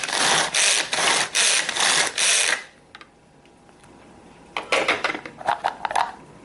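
Manual pull-cord food chopper being pulled hard several times in quick succession, its ratcheting blade mechanism whirring and chopping onion. The rasps stop for about two seconds, then a few more short pulls and clicks follow near the end.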